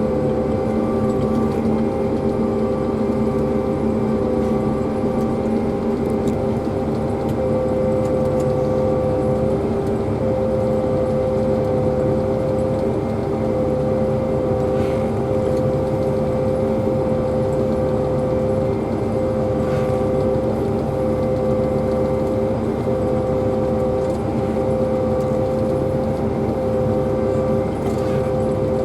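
Self-propelled pea viner running steadily under load, its engine and threshing drum giving a constant drone with a steady whine.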